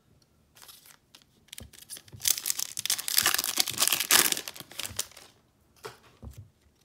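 Foil wrapper of a Panini Mosaic football card pack being torn open and crinkled by hand. The crackling is loudest in the middle few seconds, then fades to a few small rustles.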